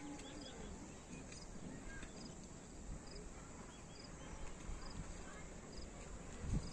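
Quiet open-air ambience with birds calling: one bird repeats a short high chirp about once a second, while other birds chirp now and then over a faint low rumble.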